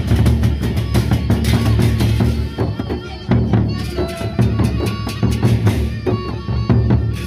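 Gendang beleq ensemble playing: large Sasak barrel drums beaten in a dense, driving rhythm with a deep booming low end and crisp cymbal clashes above. The playing eases briefly about three seconds in, then picks up again.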